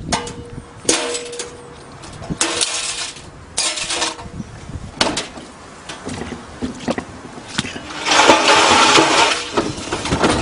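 Washing machine being smashed: a series of loud crashes and breaking noises a second or so apart, with a longer clattering crash near the end.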